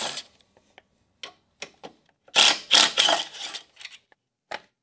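A cordless power driver spinning out skid-plate bolts in two short bursts, the first stopping just after the start and a longer one about two and a half seconds in, with light metallic clicks between.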